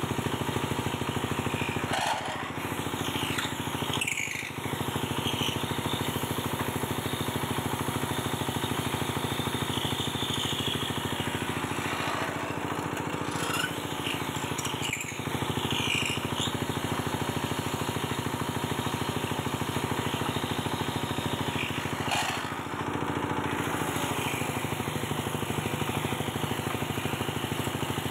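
Small 6 HP diesel engine running steadily, driving a homemade dowel-turning machine as wooden sticks are fed through and cut round into 22 mm broom-handle dowels. Three times, a higher scraping sound of the cutters on the wood rises and fades over the engine.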